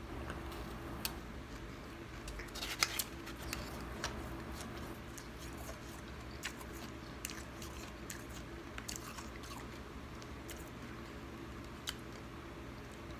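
Close-up chewing of a mouthful of freezer frost, soft snow-like ice giving scattered crisp crunches, the loudest cluster about three seconds in, with the spoon scraping and clinking in the stainless steel bowl. A steady low hum runs underneath.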